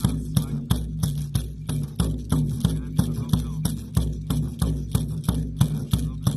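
Handheld shamanic frame drum beaten in a steady, even rhythm of about three strokes a second, each stroke leaving a low, booming ring that carries into the next.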